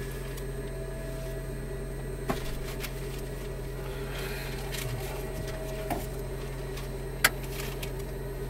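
Steady hum inside an Antonov An-24 turboprop on the ground. A few clicks break it, the loudest a sharp click about seven seconds in.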